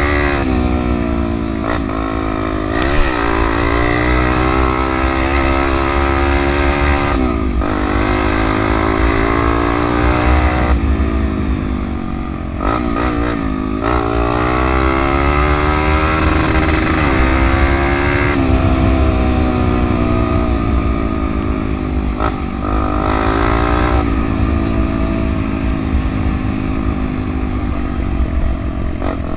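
Trail motorcycle engine under way, revving up and easing off over and over. Its pitch climbs, then drops sharply every few seconds as the throttle and gears change.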